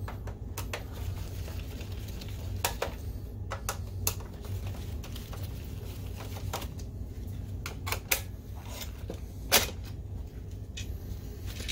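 Scattered clicks and taps of a hand screwdriver turning out the projector lamp module's retaining screws, and the plastic lamp housing knocking as it is pried out, with one louder click late on. A steady low hum runs underneath.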